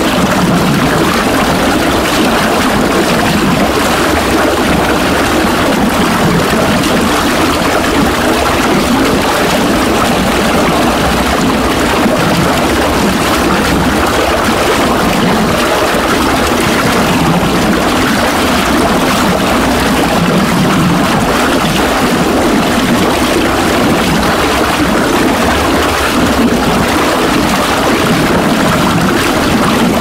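Small fast-running mountain stream rushing over rocks, a steady, even flow.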